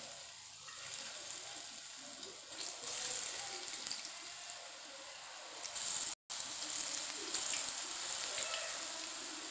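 Hot oil sizzling and crackling in a kadai as masala-battered soya chunks are dropped in to deep fry, a little louder after a few seconds as more pieces go in. The sound cuts out for a moment about six seconds in.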